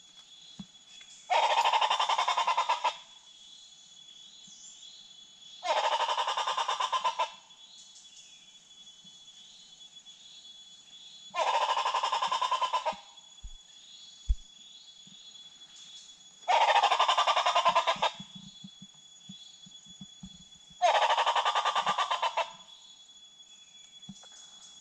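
A loud, rattling, fowl-like bird call about a second and a half long, repeated five times at a regular pace of about one every five seconds, with faint short bird chirps between.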